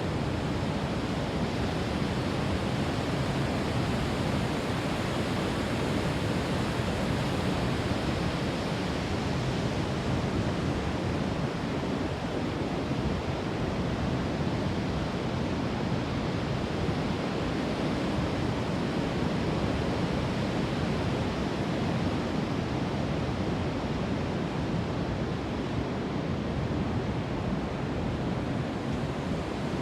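Fast-flowing water rushing steadily, a continuous even noise with no breaks.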